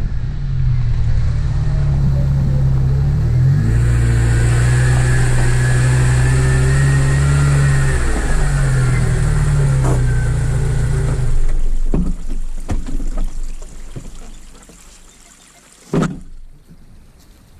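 Motor vehicle engine running while driving, its note changing pitch twice, then the engine sound stops about twelve seconds in. A few knocks follow, with one sharp bang near the end.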